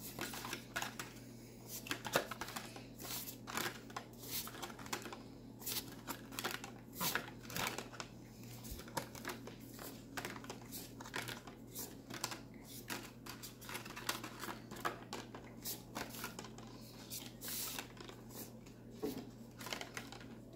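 Pokémon trading cards being flipped through by hand: irregular soft clicks, taps and rustles of card stock as cards are slid off the stack one after another, over a faint steady hum.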